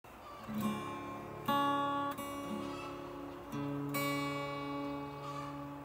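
Steel-string acoustic guitar in drop D tuning, picked and strummed chords that ring on between new notes, the first about half a second in and fresh chords around 1.5, 3.5 and 4 seconds.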